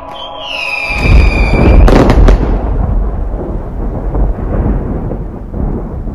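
A whistle falling in pitch for under two seconds, ending in two sharp bangs and a long low rumble: a firework explosion sound effect.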